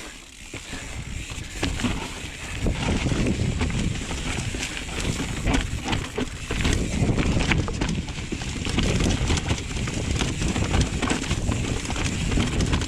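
Mountain bike riding down a rocky technical trail, heard from a camera on the rider: rumbling wind noise that grows louder a couple of seconds in as speed builds, with many clicks and knocks from the tyres and bike over rock.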